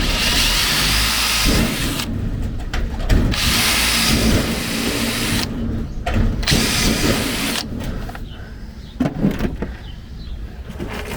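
Power drill running in three bursts, drilling holes into the sheet-metal shed door for the hasp's rivets. The longest burst is about two seconds, and each burst stops sharply.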